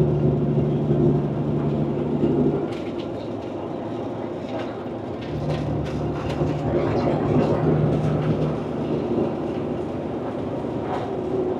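Semi truck's diesel engine and road noise heard from inside the cab while cruising at highway speed: a steady drone with a low hum that drops out about two and a half seconds in, comes back around five seconds in and fades again, and a few light ticks.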